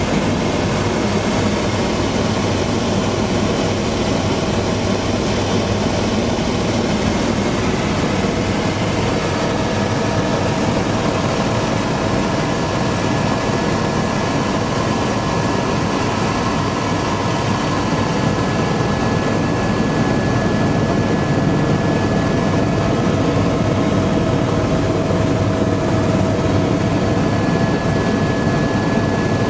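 Helicopter in flight, heard from inside the passenger cabin: a steady, loud rumble of engine and rotor with a constant whine from the turbine.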